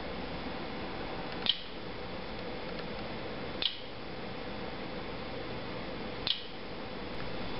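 Three short, sharp, high clicks, a couple of seconds apart, over a steady low hum.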